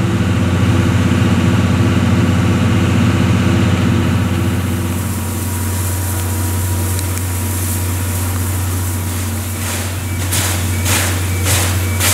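Railway engine idling with a steady low hum and a pulsing tone over it. About halfway through, the sound changes, and near the end a few short hissing bursts break in.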